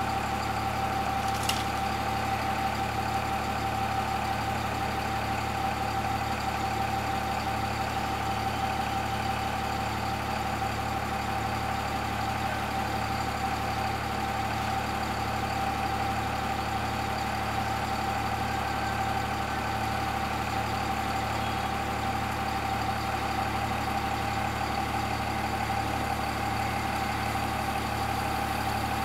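Diesel engine of an Eicher Pro 5025 tipper truck idling steadily, with a steady high whine over the low engine note.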